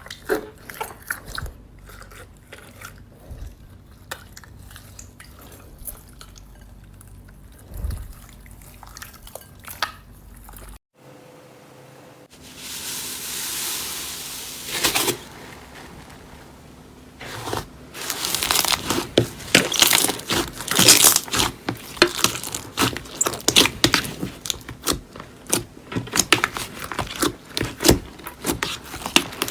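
Slime being squeezed and pressed by hand, with scattered soft clicks and pops, then a brief gap and a short hissing stretch. From about two-thirds of the way in it turns to dense, loud crackling and popping.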